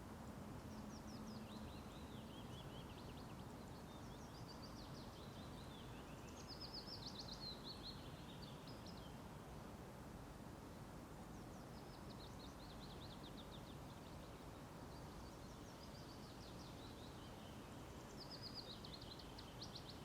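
A songbird singing short phrases of quick, high notes that fall in pitch, each about two seconds long, repeated every few seconds over a faint, steady outdoor hiss.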